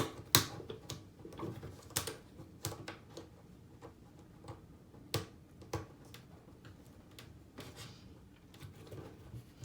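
Irregular light clicks and taps of a plastic child-safety strap lock being handled and positioned against a cabinet, with faint handling rustle between them.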